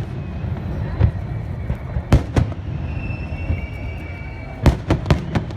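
Fireworks salute going off: sharp bangs of bursting shells over a steady low rumble, single reports early on, then a quick run of four near the end, with a thin whistling tone in the middle.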